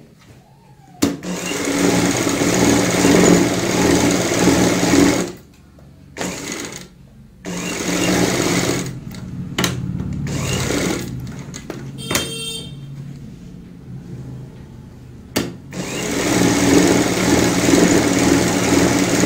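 Black domestic sewing machine running, stitching straight lines through fabric in several runs of a few seconds each, stopping and starting between them. There is a sharp click about fifteen seconds in.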